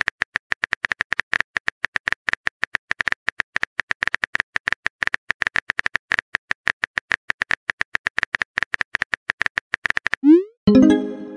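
Rapid simulated phone-keyboard typing clicks, several a second, as a text message is typed out. About a second before the end, a quick rising swoosh and a chime mark the message being sent.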